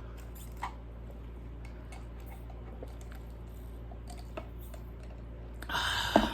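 Soft chewing and small wet mouth clicks from someone eating a burger close to the microphone, over a low steady hum, with a short louder noise near the end.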